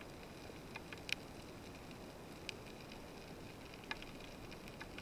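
Faint underwater ambience heard through an action camera's waterproof housing: a steady low hiss with a few scattered sharp clicks, the loudest about a second in.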